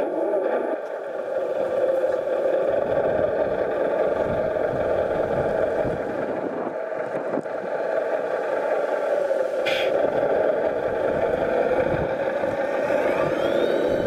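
Radio-controlled model heavy truck running: a steady engine-like drone with whining tones. A rising whine comes near the end.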